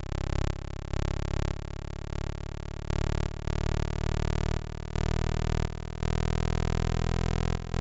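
Huygens probe's recording of its descent through Titan's atmosphere: a steady rushing hiss that shifts in loudness every second or so, with a faint tone slowly rising in pitch.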